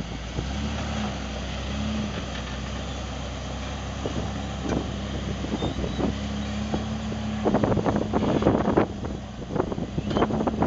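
Jeep Wrangler Rubicon's 4.0-litre straight-six running at low revs as it crawls in reverse over rough ground, with brief rises in revs early on. From about seven and a half seconds in comes a run of sharp knocks and crackles, louder than the engine.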